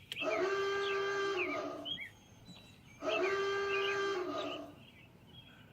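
Emergency alert tone sounding twice: two identical long notes, each held at a steady pitch for nearly two seconds, the second starting about three seconds in.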